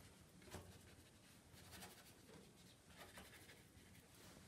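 Near silence, with faint soft strokes of a damp 1.5-inch flat brush on watercolour paper as clouds are lifted out of a wet sky wash.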